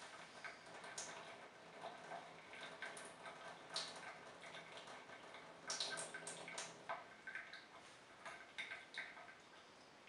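Water draining from a modified Miele W1 toy washing machine: faint, irregular dripping and trickling with scattered small clicks, denser for a moment about six seconds in.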